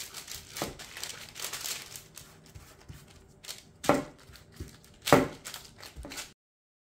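Baking parchment paper crinkling and rustling under gloved hands pressing and shaping a log of soft dough on a tray, with two louder, sharper crackles about four and five seconds in. The sound cuts off suddenly about six seconds in.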